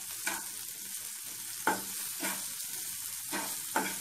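Sliced onions, garlic and ginger sizzling in oil in a nonstick frying pan as they are sautéed. A metal slotted spatula stirs them, scraping across the pan about five times.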